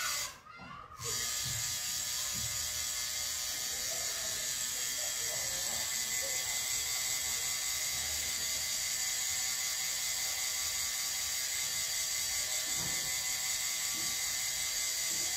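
Pen-style rotary tattoo machine running steadily while shading skin, a continuous high mechanical whir. The sound drops out for under a second just after the start.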